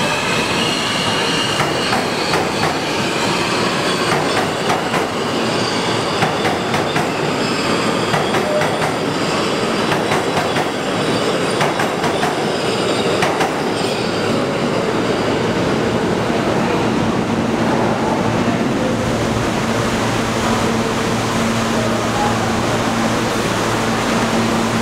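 New York City Subway train running through the station, its wheels squealing and clicking over the rail joints. In the last several seconds a steady low hum holds as the train stands.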